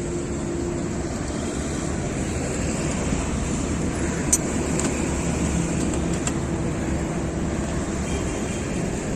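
Steady road traffic noise with a low rumble, and a few short sharp clicks, the loudest about four seconds in.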